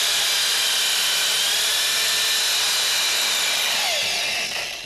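Electric drill spinning a rebuilt 24-volt brushless alternator at speed, a steady high whine with hiss, then winding down with a falling pitch about four seconds in. The alternator is charging, putting out 28.2 volts while it spins.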